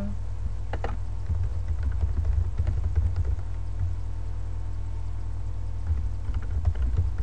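Typing on a computer keyboard, heard mostly as dull low thumps with faint clicks, in two runs separated by a pause of about two seconds. A steady low hum runs underneath.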